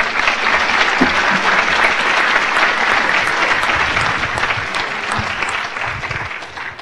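Audience applauding, dying down near the end.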